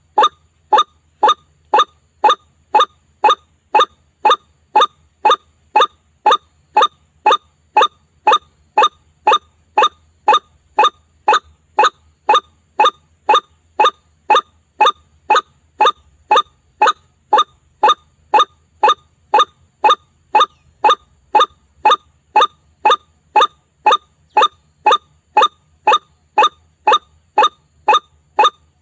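White-breasted waterhen (ruak-ruak) lure call: a short, harsh note repeated monotonously, about twice a second.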